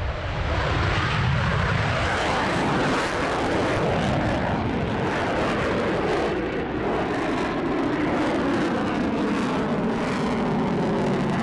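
Military aircraft's engines running loud and steady as it passes or takes off, with a pitch that slowly shifts.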